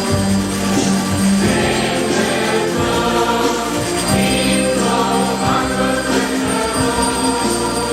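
Choir singing a liturgical hymn with instrumental accompaniment, held notes under a steady melody.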